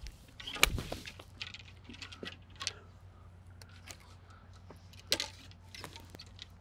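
Golf clubs clicking and rattling against each other in a golf bag as clubs and headcovers are handled, with a loud sharp knock a little after the start and another about five seconds in.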